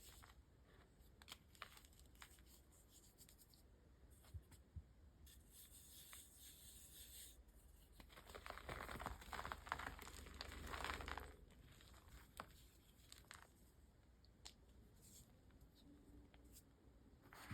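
Blocks of reformed gym chalk being crushed and crumbled by hand: scattered soft crackles, rising to a louder stretch of dense crunching in the middle.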